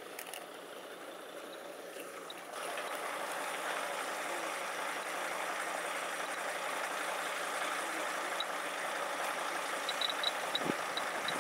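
Steady outdoor hiss with no clear source, getting louder about two and a half seconds in, with a few faint, very short high chirps near the end.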